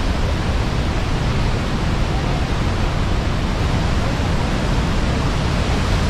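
Murchison Falls, the Nile forced through a narrow, steep gorge, rushing steadily with a deep, unbroken noise of falling water.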